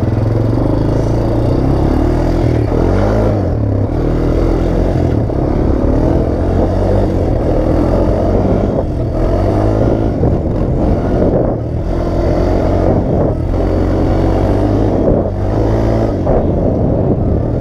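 Honda Recon 250 ATV engine running under way, its pitch rising and falling again and again with the throttle.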